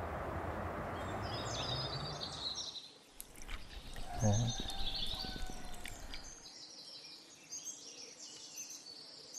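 Many small birds chirping and twittering outdoors. A steady rushing noise fills the first three seconds and stops abruptly, and a short low sound comes about four seconds in.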